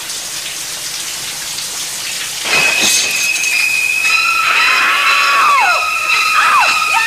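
A shower's spray hisses steadily. About two and a half seconds in, shrill high sustained strings stab in over it, with short falling shrieks in the last seconds, as a woman screams.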